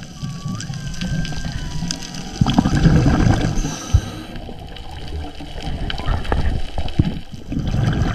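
Whale song heard underwater: thin, faint tones, one sliding upward, in the first couple of seconds. They sit over a steady low underwater rumble with scattered clicks, and a louder low gurgling rumble comes about two and a half to three and a half seconds in.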